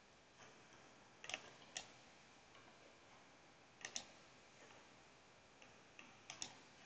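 Computer mouse button clicks, four or five short sharp clicks spaced a couple of seconds apart, two of them double clicks, over near-silent room tone.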